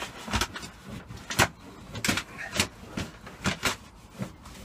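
A cloth rubbed firmly over a bitumen sound-deadening sheet stuck to a car's sheet-metal floor panel, in short, uneven strokes about one or two a second, pressing the sheet down to push out air bubbles.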